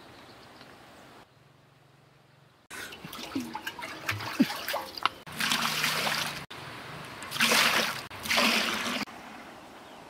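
Water poured into a large wok, splashing onto the metal in three pours of about a second each, in the second half. These come after a few small knocks and clatters.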